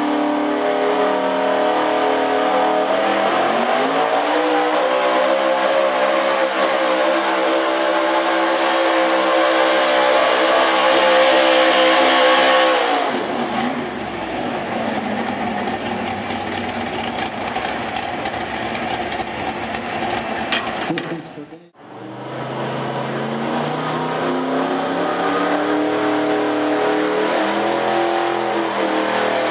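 Gas big-block V8 of a pro street pulling pickup revving up and held at high revs under load as it drags a weight-transfer sled. About 13 seconds in the steady engine tone gives way to a rougher, noisier sound. After a sudden break about 22 seconds in, another pickup's big-block V8 revs up at the line.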